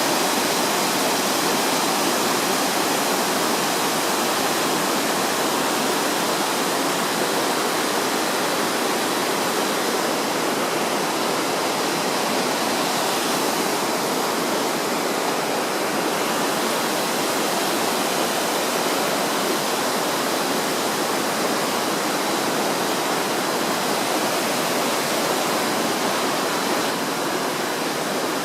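Small waterfall: water falling and splashing in a steady, even rush that does not change.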